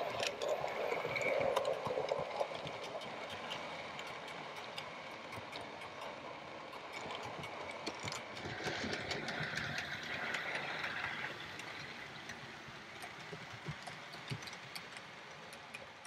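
Model train, a streamlined Princess Coronation locomotive hauling coaches, running on the layout's track: a steady rushing rumble of wheels and motor with many light clicks. It is loudest about a second in, swells again midway, and fades near the end.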